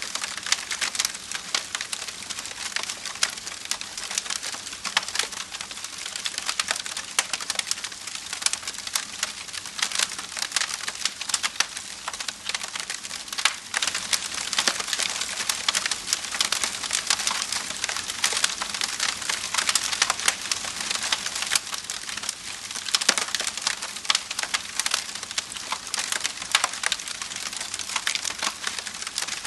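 Wood fire crackling, with dense, continuous small snaps and pops.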